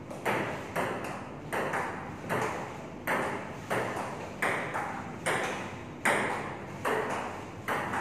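Table tennis rally: the celluloid ball clicking off paddles and the tabletop in a quick, even run of sharp hits, about two to three a second, each with a short echo from the hard room.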